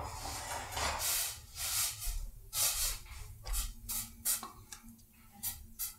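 A stainless saucepan of near-boiling beef broth being brought over and set down on a pot holder: rustling and scraping noises in the first few seconds, then several short clicks and knocks.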